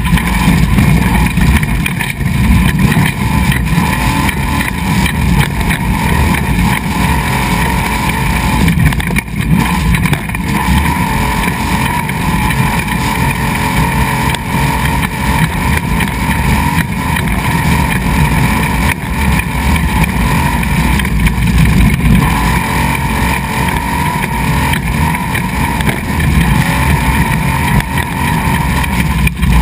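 Desert race truck running at speed on a gravel road, heard from an onboard camera: steady, loud engine and drivetrain noise over a heavy rumble of tyres on gravel.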